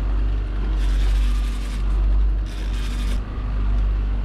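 Boat's outboard motor running steadily under a constant low rumble, with two short bursts of hiss about a second and two and a half seconds in.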